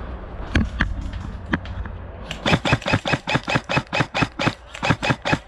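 Airsoft gun firing: a few single shots, then from about two seconds in a fast, even string of shots at about six a second.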